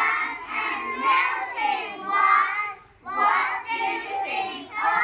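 A group of young children singing together in sung phrases, with a short break in the singing a little past halfway.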